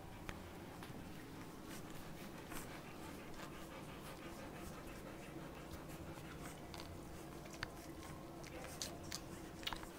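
Golden retriever mother panting softly while her two-week-old puppies suckle, with scattered small smacking clicks and a few sharper ones near the end.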